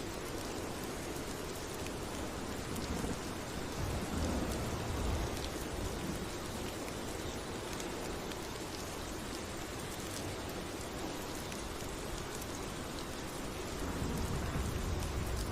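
Steady rain, with fine ticks of individual drops. Low rumbles of distant thunder swell about four seconds in and again near the end.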